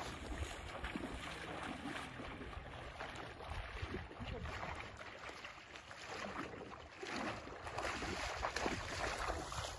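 Muddy river water splashing and sloshing as men wade through it and beat the surface to drive fish upstream toward a net.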